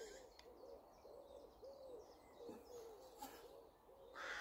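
Faint cooing of a wild pigeon: a quick run of short, low coos over quiet outdoor background.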